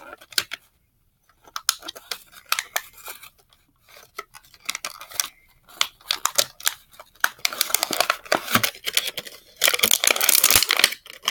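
Thin clear plastic packaging bag crinkling and tearing as it is pulled open by hand. The rustles are sparse with a short lull about a second in, then grow denser and louder from about seven seconds in.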